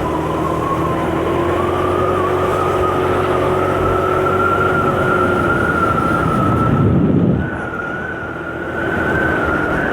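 A 125cc motor scooter's engine running on the move, a steady whine that slowly climbs in pitch as it gathers speed. It eases off briefly a little after seven seconds in, then picks up again.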